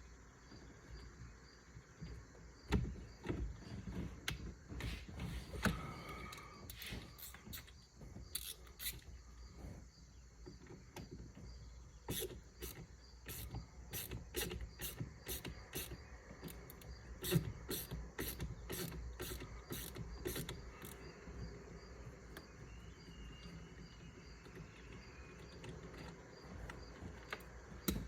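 Hand tools working fasteners on a car's steering wheel: irregular metallic clicks and knocks, with ratchet-like clicking, thickest through the middle.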